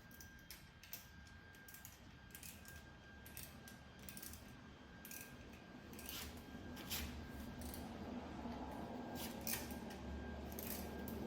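Faint scattered clicks and scrapes of small metal parts being handled while fitting a bicycle brake and its cable. A rustling noise grows louder from about halfway.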